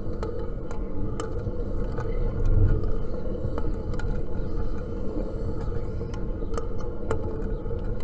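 Attic fan running steadily: a low whirring drone with a steady hum, and light clicks or ticks at irregular intervals.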